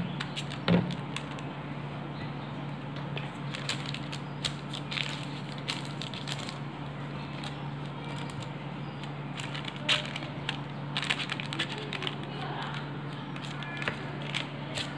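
A plastic scraper spreading and shaping meringue on butter paper in a pan: scattered scrapes, paper crinkles and light clicks, over a steady low hum.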